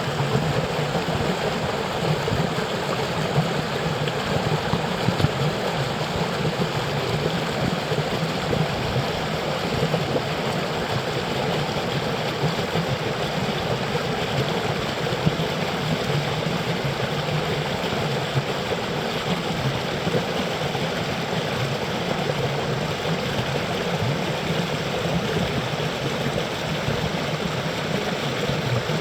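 Cold water running steadily, an even unbroken noise with no change.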